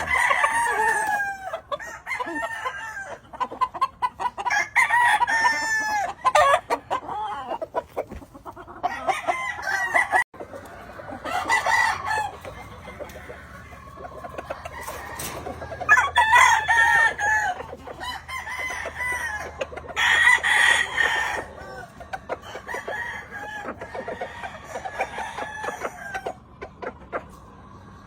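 Several Yellow Leg Hatch gamefowl roosters crowing again and again, some calls overlapping, with hens clucking between the crows.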